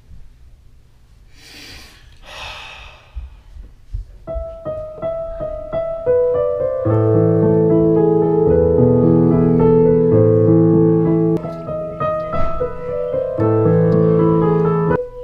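Yamaha digital keyboard in a piano voice, played with both hands: a few single notes about four seconds in, then full sustained chords. Two short airy rushes of noise come before the playing starts.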